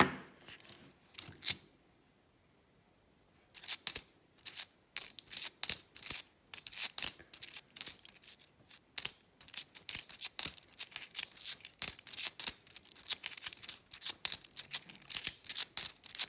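Cupronickel 50p coins clicking against each other as they are thumbed one by one off a stack held in the hand. A few clicks at the start, a pause, then a fast, irregular run of sharp clicks from about three and a half seconds in.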